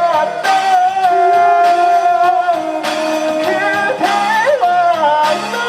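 Korean pop ballad performed live: long held melody notes with vibrato over accompaniment with a steady beat.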